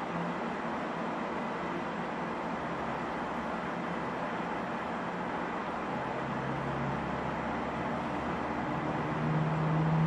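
Steady static hiss from a switched-on EVP ghost-box device, with a low hum coming in and growing louder near the end.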